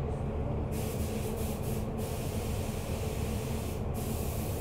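Steady background noise: a low hum with a high hiss that drops out briefly a few times.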